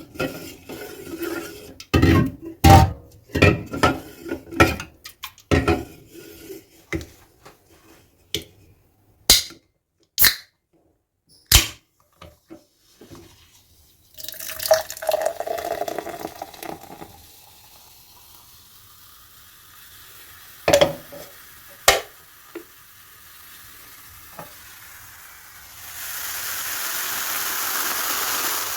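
Aluminium drink cans handled and opened: a string of sharp metallic clicks and knocks with short ringing, then liquid pouring and a carbonated drink fizzing, two more sharp clicks, and a louder hiss of fizz near the end.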